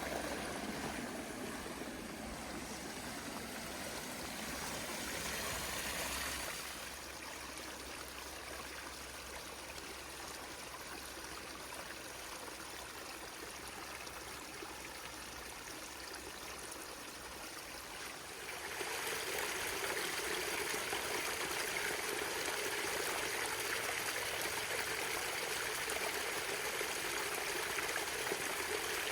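Forest stream flowing in a steady rush of water. It drops a little in level about six seconds in and grows louder again near 19 seconds.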